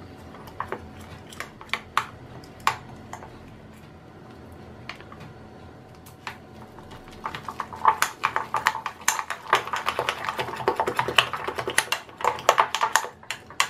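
Spoon mixing gram flour and spinach purée into a batter in a glass bowl. Scattered clicks and scrapes against the glass at first, then from about eight seconds in a quick run of clicks as the batter is beaten.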